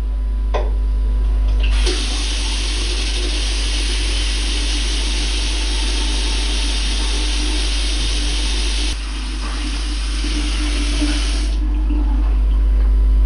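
Water running from a tap into a bathroom sink as a steady hiss. It starts about two seconds in and is shut off a couple of seconds before the end, over a steady low electrical hum.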